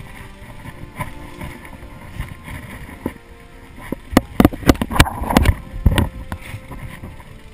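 Mountain bike ridden over a dirt trail, heard from a handlebar-mounted camera: tyres rolling through a puddle with a steady rumble and splash at first, then from about four seconds in a run of rapid, loud knocks and rattles as the bike jolts over rough ground.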